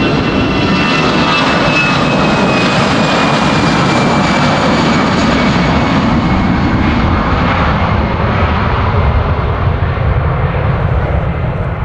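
Airbus A320-200 jet engines at takeoff power as the airliner departs, a loud steady rush with a faint high whine that slowly falls in pitch, the sound thinning out near the end as it moves away.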